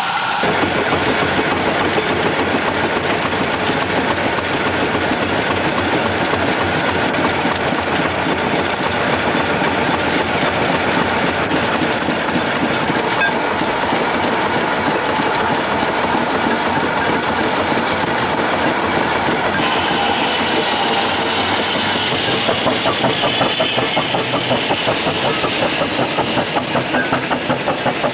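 Steam engine running with a rapid, even beat. Near the end a slower pulse, about twice a second, comes through.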